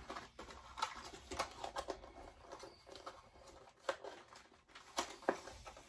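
Small items and packaging being handled: scattered rustles and sharp clicks.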